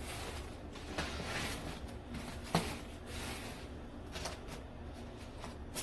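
Takeout food packaging being handled and opened on a table: plastic rustling, with a sharp click or knock about a second in and another, louder one about two and a half seconds in.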